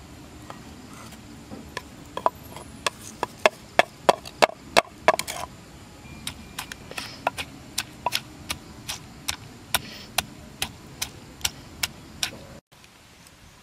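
Wooden pestle pounding chilies and garlic in a wooden mortar: a steady run of hollow knocks, about two or three a second, loudest a few seconds in, then cutting off abruptly near the end.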